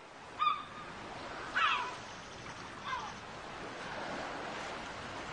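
Steady wash of waves, with three short high bird calls in the first three seconds.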